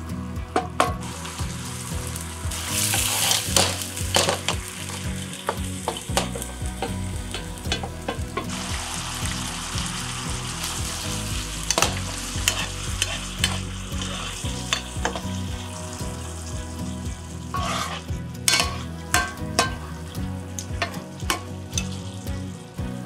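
A sauce of ground meat, mushrooms and tofu sizzling and simmering in a frying pan while a spatula and then a spoon stir it, with many small clicks and scrapes of the utensils on the pan, bunched together near the end.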